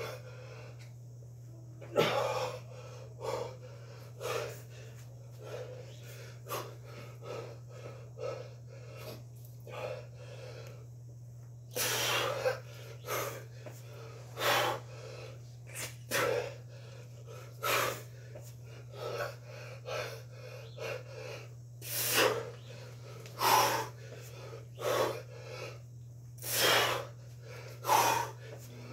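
A man breathing hard under exertion during one-arm kettlebell cleans and squats: sharp, forceful puffs of breath about once a second, a few of them much louder blasts. A steady low hum runs underneath.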